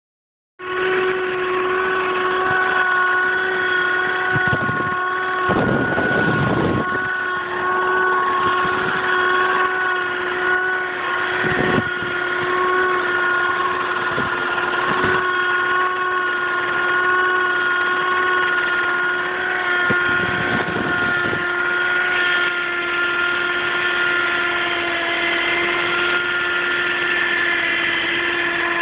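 Steady, loud humming tone with a string of overtones from a 2007 Audi A4 3.2 quattro, the strange hum that often comes when the car is driven aggressively; it starts about half a second in and holds nearly one pitch, with a few brief rushes of noise over it.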